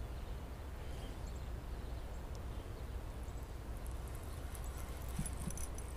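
Steady low outdoor rumble, with a few faint knocks near the end.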